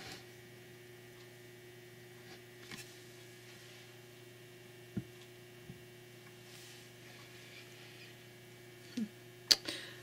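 Steady electrical hum, with a few light knocks and a sharp click near the end.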